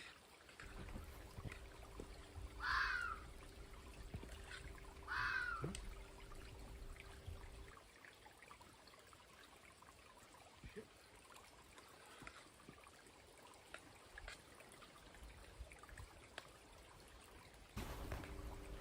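A crow cawing twice, about three and five seconds in, over the faint steady trickle of a river. A faint low hum runs under the first half and then stops.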